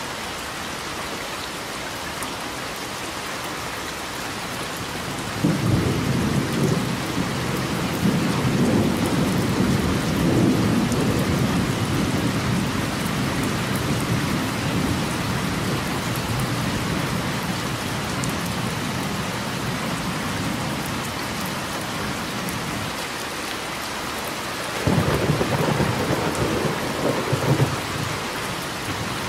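Steady rain with two rolls of thunder: a long rumble starting about five seconds in that fades away over some fifteen seconds, and a shorter one near the end.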